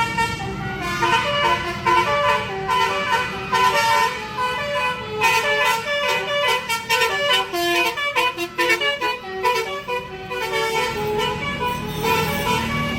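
Basuri 'telolet' multi-tone bus horn playing a tune, note after note in quick succession without a break.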